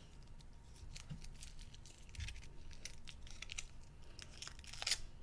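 Foil wrapper crinkling and tearing as it is peeled off a small foil-wrapped chocolate ladybug: a run of light, irregular crackles with a sharper one near the end.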